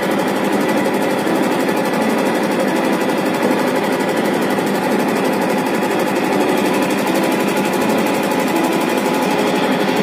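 Samsung top-loading single-tub washing machine running with a steady, fast mechanical rattle.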